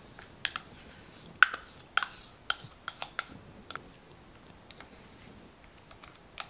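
Metal spoon clicking and scraping against a plastic yogurt cup and a glass bowl while Greek yogurt is scooped out: a string of short, sharp, light clicks, closest together in the first half and fewer later.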